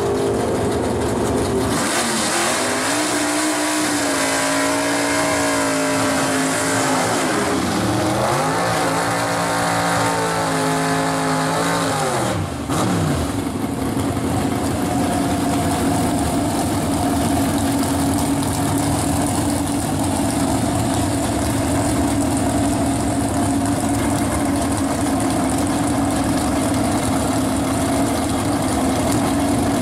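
Drag car's engine revving hard through a burnout. In the first half the revs fall and climb again several times, then they hold high and steady for the rest.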